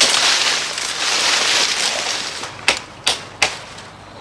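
Leaves and branches rustling as someone pushes through dense bush, then three sharp snaps or knocks about a third of a second apart, typical of sticks being broken or struck.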